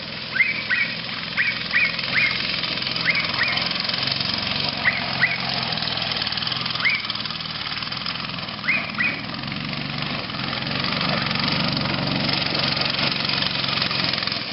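Off-road go-kart's engine running as the kart drives across the lawn, growing louder from about ten seconds in as it comes close. Short high bird calls, mostly in pairs, come through the engine noise in the first nine seconds.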